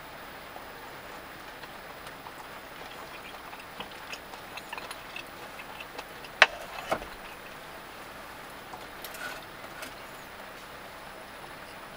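Steady hiss of rain on a small van, with light clicks of chopsticks and tableware. About six and a half seconds in comes a sharp clink of chopsticks against a small skillet, and a softer knock half a second later.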